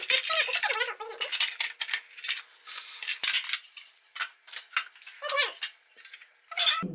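Metal trays and the ridged nonstick grill plate of a Boar Honyo electric grill clattering, clicking and scraping against the base as they are slotted in and lifted out.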